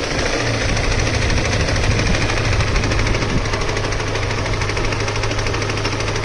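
Engine running with a rapid, steady knock, which the owner suspects is a connecting rod or a spun bearing.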